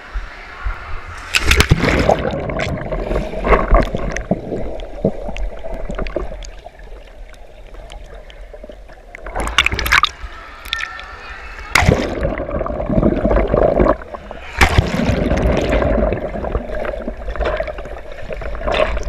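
Pool water splashing, sloshing and gurgling against a helmet-mounted camera as it plunges under the surface and comes back up. The sound turns muffled and bubbly while the camera is underwater, broken by several loud splashes.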